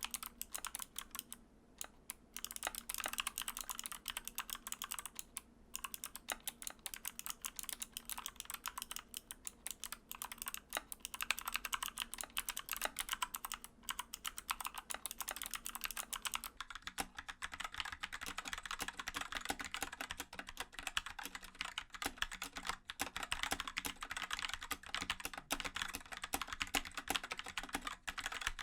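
Mechanical keyboard switches being typed on fast and continuously: a dense stream of key clicks and clacks. About 17 seconds in, the sound of the keystrokes and the background hum change, as if a different switch or keyboard takes over.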